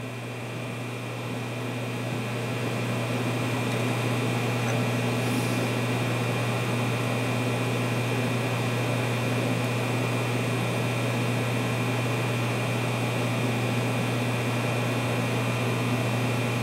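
Steady machinery hum with a strong low drone and a fainter hiss above it. It grows slightly louder over the first few seconds, then holds steady.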